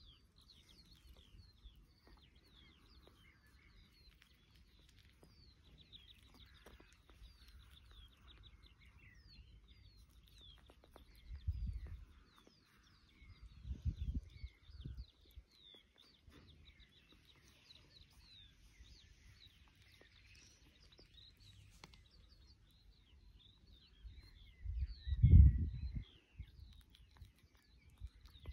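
Birds chirping and twittering faintly throughout in many short quick notes, with three low muffled rumbles, the loudest near the end.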